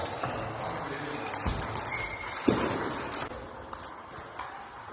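Table tennis ball clicking off bats and table in a rally, several sharp irregularly spaced pocks, over a steady hall background.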